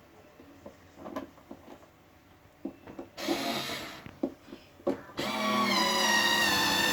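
Scattered clicks and knocks of parts and tools being handled, then a small electric motor starts about five seconds in and runs with a steady whine.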